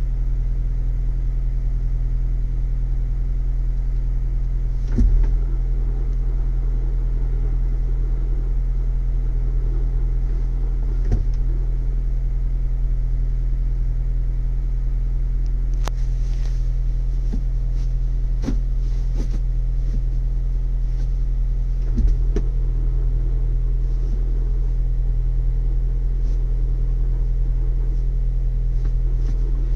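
Ford Bronco's 2.3-litre turbocharged four-cylinder idling steadily on a cold start, with a few light clicks or knocks, the loudest about five seconds in and again about 22 seconds in.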